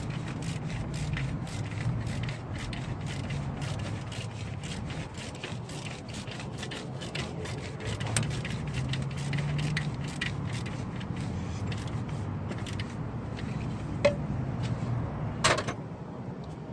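Hand wrench work on the alternator's mounting bolts: dense, irregular metal clicking and scraping, over a low steady hum, with a sharper knock near the end.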